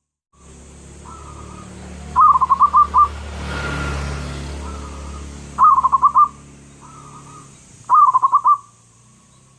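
Zebra dove (perkutut) cooing: three loud bursts of quick, rapidly repeated coo notes, each under a second long, with softer coos between them. A low background rumble swells and fades around the middle.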